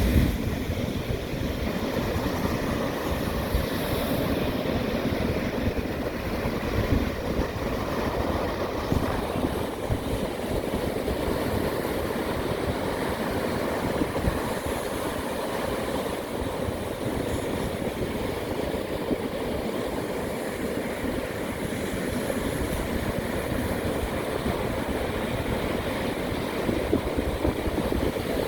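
Steady rush of sea surf, with wind buffeting the microphone and giving a continuous low rumble.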